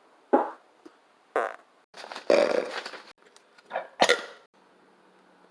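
A string of about five fart sounds. Two are short, one about two seconds in lasts about a second, and two come close together near the end.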